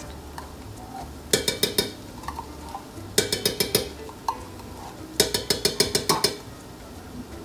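Metal spoon clinking rapidly against metal as tomato paste is knocked out of a tin can into a stainless-steel pot: three quick runs of ringing clinks, about two seconds apart.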